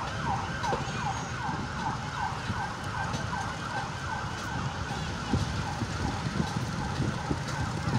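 An emergency vehicle siren sounding in quick falling sweeps, about three a second. Under it is the low rumble of heavy road vehicles.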